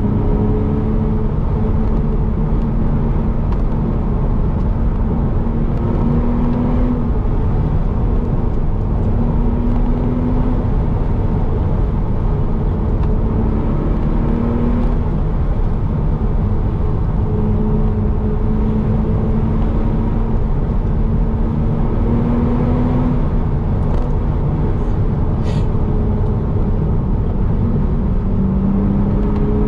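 Car engine and road noise heard from inside the cabin while driving, the engine note climbing slowly and then dropping back several times.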